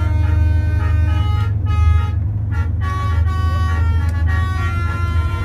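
Bus 'telolet' musical horn playing a tune of held tones that change pitch in steps, with a brief break about two seconds in, over a steady low hum.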